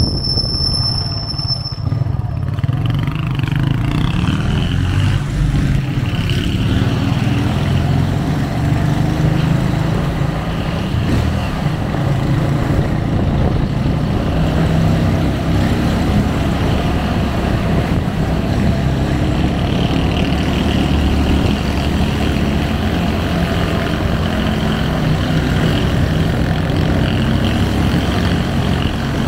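Motorcycle engine running steadily while riding through the streets, heard from on board with road and wind noise. A high squeal sounds in the first two seconds.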